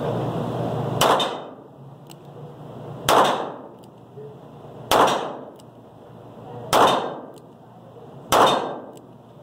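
A .38 calibre snub-nosed revolver fired five times in slow, even succession, about one shot every two seconds. Each shot rings on with a short echo off the indoor range. A steady rushing noise at the very start stops at the first shot.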